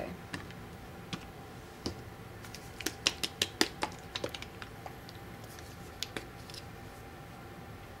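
Light clicks and taps of small plastic paint bottles and a plastic palette plate being handled and set down on the work table, with a quick run of clicks about three seconds in.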